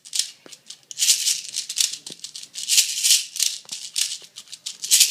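Plastic 0.28 g airsoft BBs rattling inside a handheld speed loader as it is worked again and again, in about six uneven rattling shakes.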